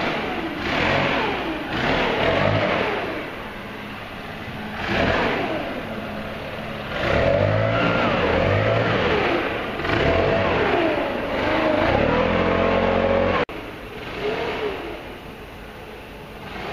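Motor engines revving, their pitch rising and falling several times over. The sound cuts off abruptly about thirteen seconds in and gives way to a quieter, lower engine sound.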